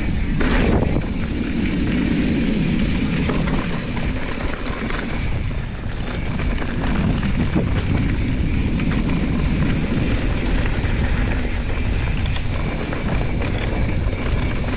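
Steady wind rumble on the microphone, with the noise of a mountain bike rolling fast down a dirt trail.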